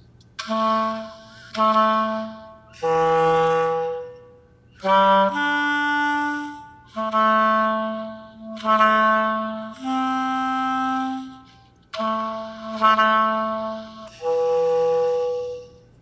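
Solo clarinet playing a slow line of about a dozen separate held notes, each a second or so long with short gaps between, moving up and down in pitch. It is a musical rendering of data on Pakistan's floods.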